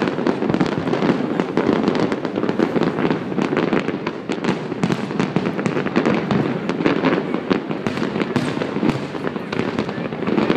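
Fireworks display: a dense, continuous barrage of bangs and crackling with no break.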